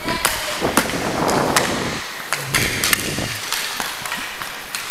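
Roller hockey play: many sharp clacks of sticks and the plastic puck against the sport-court floor and boards, over the rolling of inline skate wheels.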